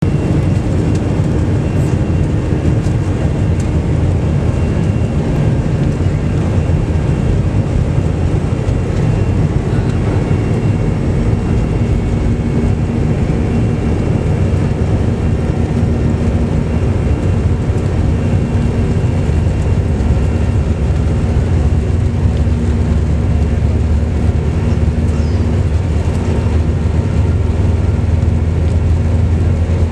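Jet airliner's engines and wheels heard from inside the passenger cabin as it rolls along the ground: a loud, steady low rumble, with a steady hum joining about twelve seconds in.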